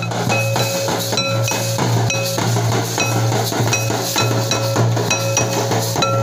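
Santal folk drumming: tamak kettledrums and a large double-headed drum beaten with sticks in a steady driving rhythm, with a metal plate struck in ringing clinks over the drums.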